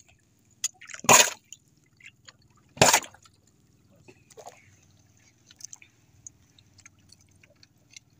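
Sea water splashing against the hull of a small outrigger boat: two short splashes about one and three seconds in, with smaller drips and slaps after.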